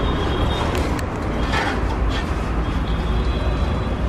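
Steady low rumble of road traffic, with a few sharp clinks of metal utensils.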